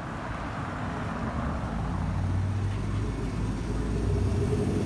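A road vehicle's engine running close by, its low hum growing steadily louder as it approaches.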